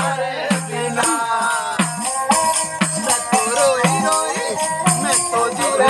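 Rajasthani folk music: a ravanahatha, a bowed stick fiddle, plays a sliding, gliding melody while a jingle tambourine shakes and strikes a steady rhythm.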